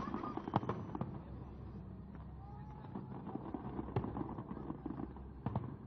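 Aerial fireworks bursting: a string of sharp bangs over a steady crackle. The loudest bangs come about half a second in, around four seconds in, and near the end.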